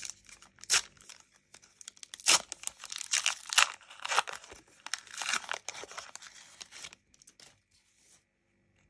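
Foil wrapper of a Panini Adrenalyn XL trading-card booster pack being torn open and crinkled: irregular crackling rips and rustles, loudest two to four seconds in, stopping about seven seconds in.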